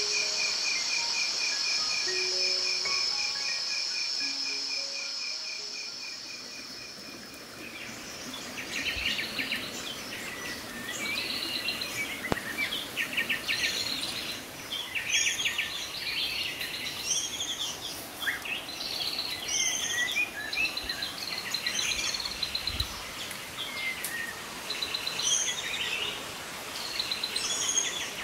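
Night insects trilling in a steady, even pulse, with a few soft music notes fading out. About eight seconds in this gives way to many birds singing in a dawn chorus, busy overlapping chirps and short songs.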